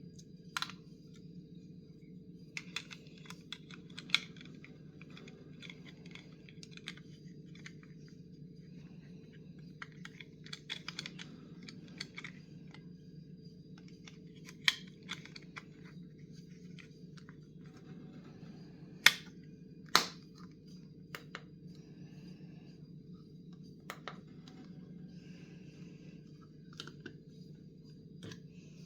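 Hands handling a wireless doorchime and its packaging: scattered clicks and rustling, with two sharp clicks a second apart about two-thirds of the way through, over a steady low hum.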